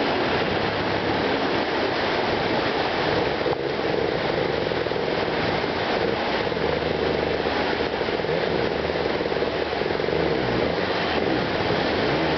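Dirt bike engine running steadily, with no break in the sound.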